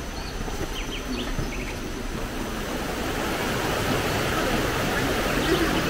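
Rushing stream water, a steady hiss that grows louder as it draws nearer. A few short high chirps sound about a second in.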